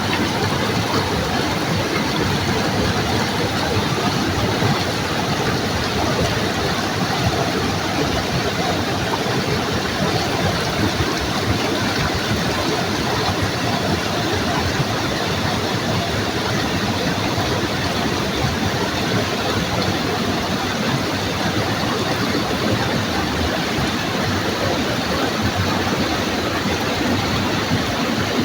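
River water rushing and flowing steadily, a constant full noise with no breaks.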